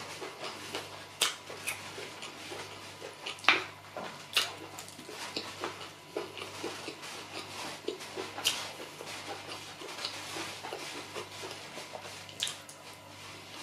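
Close-up eating sounds: chewing and wet lip smacks on a mouthful of soft rice and beans porridge, broken by irregular sharp clicks. Among them a plastic spoon scrapes and taps a glass dish as it scoops more food.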